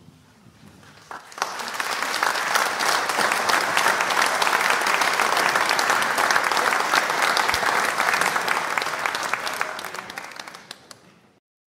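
Audience applauding: the clapping starts about a second in, swells quickly to a steady level, then thins out and cuts off abruptly near the end.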